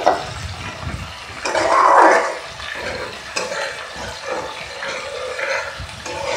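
Steel spatula stirring and scraping through a wet mustard-paste masala that is frying in a steel kadai, the paste bubbling and sizzling, with a louder swell of stirring about two seconds in.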